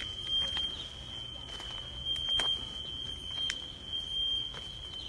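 A smoke alarm sounding a steady, high-pitched electronic tone, with a few sharp clicks and cracks mixed in.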